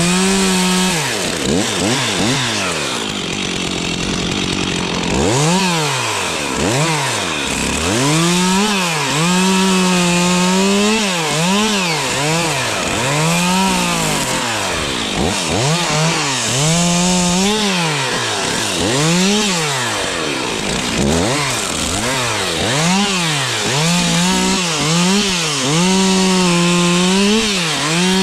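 Stihl two-stroke chainsaw revved to full throttle and let back down over and over, at times held at full speed for about a second, as in a run of short cuts through wood.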